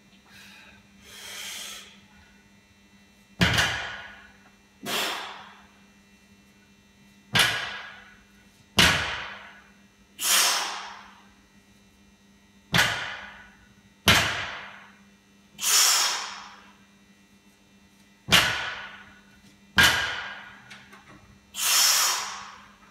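A loaded barbell's iron plates knocking against a rubber lifting platform during snatch-grip deficit deadlifts done as 1¼ reps, the knocks mostly in pairs about a second and a half apart. Each rep ends in a loud hissing breath out at lockout. A steady low hum runs underneath.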